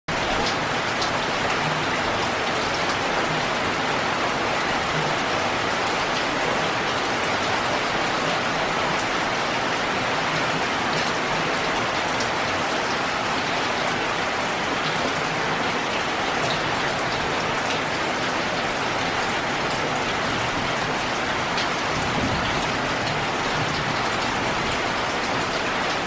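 Steady heavy rain falling on broad tree leaves and nearby surfaces, a dense even hiss with scattered sharper drop ticks.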